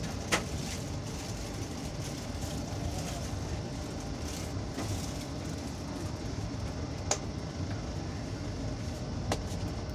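Steady rumble of a moving passenger train heard from inside the coach, with three sharp clicks standing out, one just after the start, one about seven seconds in and one near the end.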